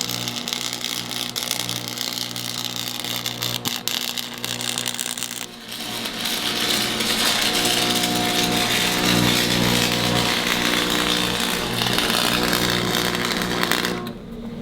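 A power tool running steadily with an even hum; from about six seconds in it gets louder and hissier, and it drops away near the end.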